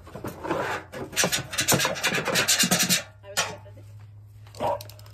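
A hand tool and fingers scraping and rubbing over a GE dryer's sheet-metal base and blower opening, working packed lint loose. Rapid scratchy strokes run for about three seconds, then it goes quieter, with a couple of brief scrapes near the end.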